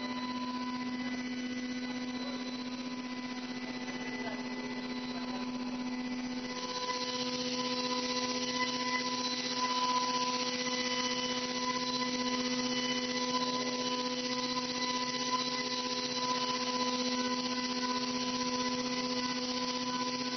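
Haas VF-2 Mold vertical machining center milling a metal mold cavity with a small end mill: a steady spindle whine of several held tones, with a cutting hiss that grows louder about six seconds in.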